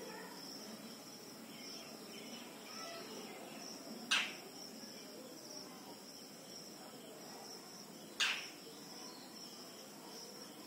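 Insects chirring with a steady high-pitched drone, over quiet outdoor background. Two short, sharp sounds stand out, about four seconds apart.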